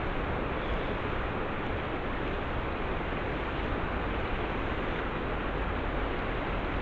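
Steady rushing of flowing river water, an even hiss with no breaks or separate splashes.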